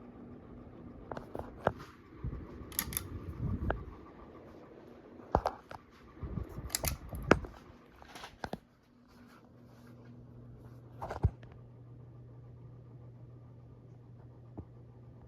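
Hampton Bay Littleton ceiling fan running with a steady motor hum. Irregular clicks and knocks come over it through most of the first eleven seconds, the sharpest about seven and eleven seconds in.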